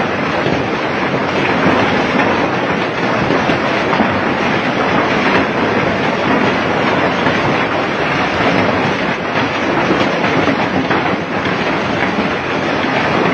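Heavy rain pouring down and splashing onto waterlogged ground: a loud, steady, unbroken rush of water.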